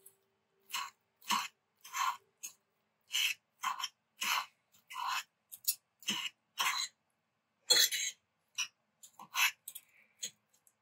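Two forks pulling apart braised beef chuck roast on a plate: a string of short scraping, tearing sounds, about one or two a second.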